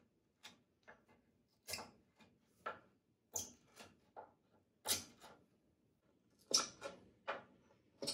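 Short scratchy scrapes of a pointed hand tool worked into the bolt holes of a wooden skateboard deck: about a dozen irregular strokes, roughly one or two a second.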